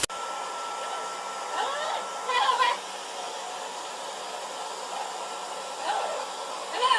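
Handheld hair dryer blowing steadily, its airflow rush carrying a steady motor whine. A couple of short, wavering higher-pitched sounds rise over it about two seconds in and again near the end.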